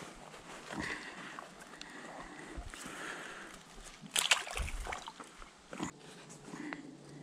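A freshly caught roach being put into a keepnet at the water's edge: rustling and handling in the reeds, with a short splash and slosh about four seconds in as the fish goes into the net.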